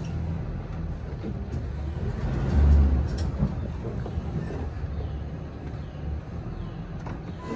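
Pickup truck engine running as the truck creeps along slowly with a dumpster trailer in tow, a steady low rumble that swells into a louder low thump about two and a half seconds in.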